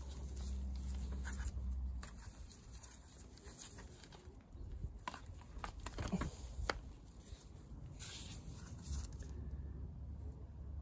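Light scraping and handling noise with a few sharp clicks about five to seven seconds in, over a low steady hum.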